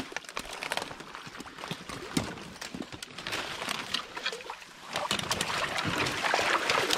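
A person wading through shallow creek water among brush: sloshing, splashing steps with scattered cracks and clicks, growing louder about five seconds in.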